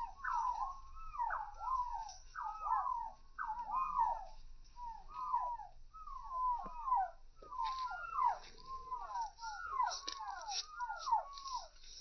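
Several young chickens peeping without pause, short overlapping calls that swoop up and fall away, a few each second. Short scratchy clicks join in over the second half.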